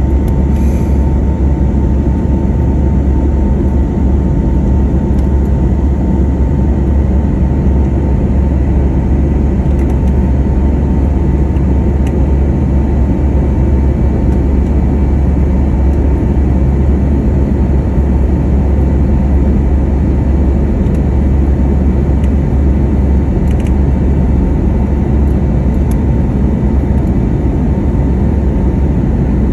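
Cabin noise beside the Pratt & Whitney PW1127G geared turbofan of an Airbus A320neo at climb power after take-off: a steady deep rumble and rush of air with a constant whine running through it.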